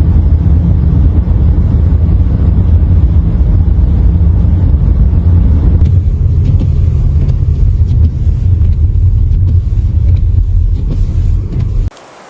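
A loud, steady low rumble that cuts off suddenly near the end.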